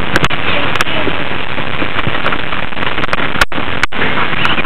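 Loud, steady rushing noise on a camcorder's microphone, with several sharp clicks and two brief drop-outs in the recording about three and a half seconds in.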